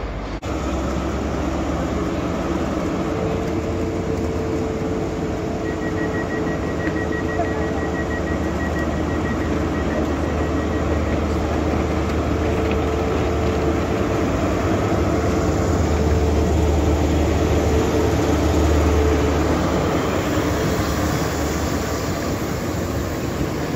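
ScotRail HST running slowly through the station: the Class 43 power car's diesel engine gives a steady low drone with a whine over it, growing louder as the power car draws close.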